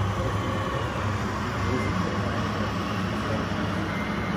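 Remote-control model truck running: a steady low engine-like hum with a faint high whine.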